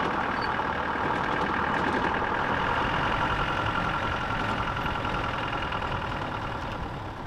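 Safari jeep driving along a dirt track, its engine running steadily under road noise, easing off slightly near the end.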